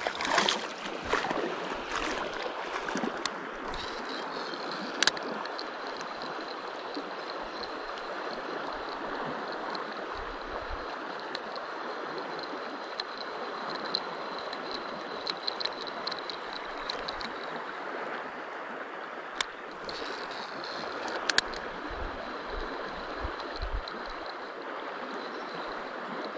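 Steady rush of flowing river water. A faint thin high whine comes and goes through much of it, and there are a few sharp clicks, one about five seconds in and two around twenty seconds.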